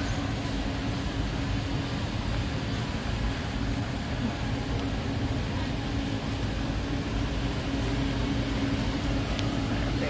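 Warehouse store ambience: a steady low hum and rumble, unchanging throughout.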